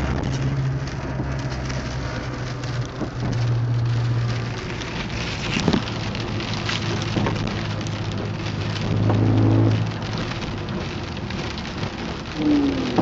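Chevrolet Cavalier running, with a low engine hum that shifts in pitch a few times under a steady rushing noise, and scattered short creaks or ticks through the middle.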